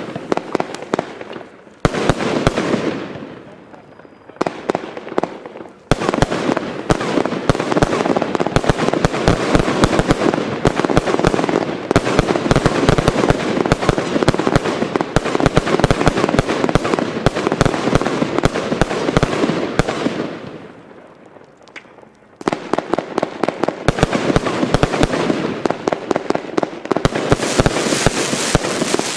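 Consumer F2 compound firework batteries (cakes) firing dense, rapid volleys of shots and bursts with crackle. The firing comes in several long bouts, dying down twice and starting again abruptly.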